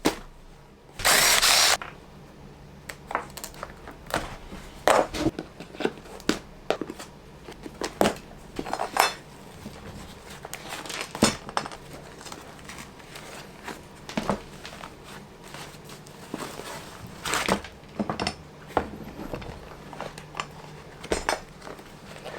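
Workshop handling sounds: scattered sharp clicks and knocks of tools and parts being worked by hand, with a short loud hiss about a second in.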